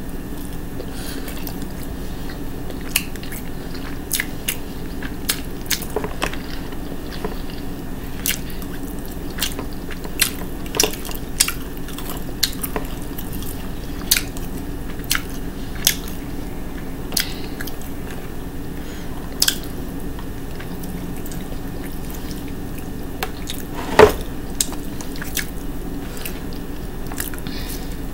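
Eating sounds: scattered short clicks of a metal fork against a plastic bowl, with chewing and mouth noises, over a steady low background hum. One louder knock comes about three-quarters of the way through.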